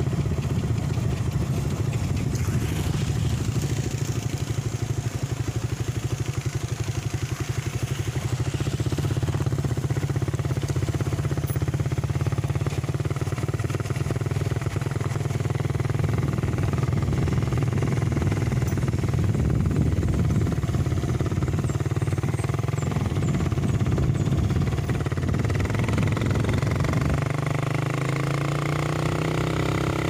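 Motorcycle engine running steadily under way, its note rising near the end as it speeds up.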